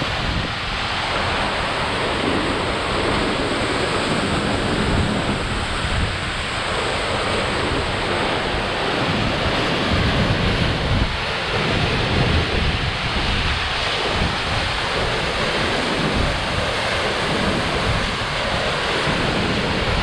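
Roar of a tall waterfall, about 100 m high, heard from right behind the falling water: a loud, dense, unbroken rush. Spray and air pushed by the falls buffet the microphone in irregular low gusts.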